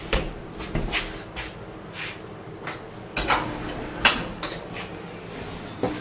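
Irregular knocks and clicks from footsteps and handling of a handheld camera while walking across a hard floor, about a dozen in all, the loudest about three and four seconds in, over a faint steady hum.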